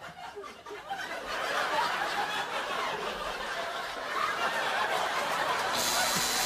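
Studio audience laughing, the laughter swelling and growing louder about a second in. A high hiss joins near the end.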